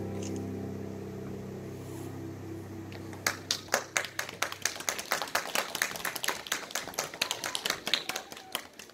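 The last chord of a children's choir song with piano accompaniment rings out and fades, then an audience starts applauding about three seconds in, in separate, distinct claps.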